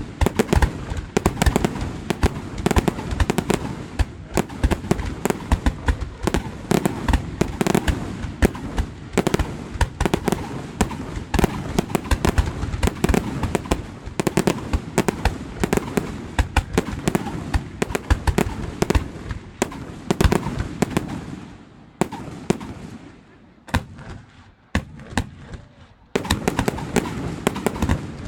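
Fireworks display: a rapid, continuous barrage of bangs and crackles. Near the end the barrage thins out and fades for a few seconds, then starts again suddenly at full strength.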